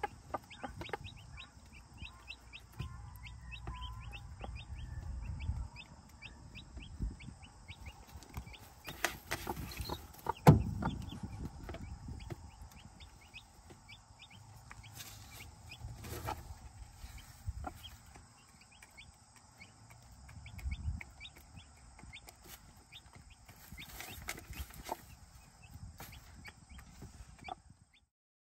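Young chicks peeping in rapid, repeated short chirps while a broody hen clucks softly, with a single sharp knock about ten seconds in.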